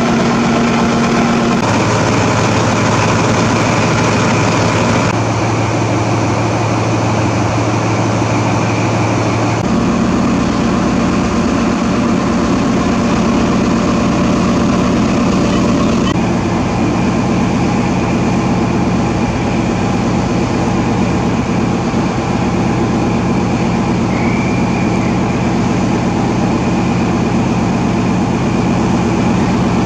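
XPT diesel power car idling while the train stands at the platform, a steady engine drone. Its pitch and balance change abruptly a few times.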